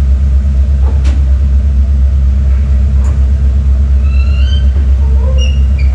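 Car ferry's machinery running with a loud, deep, steady hum while the hinged bow ramp is being raised. There are a couple of faint clanks, and a run of short high squeaks near the end.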